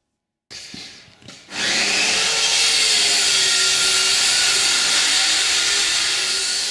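A power tool running steadily with a wavering whine. It starts quietly about half a second in and becomes loud at about a second and a half.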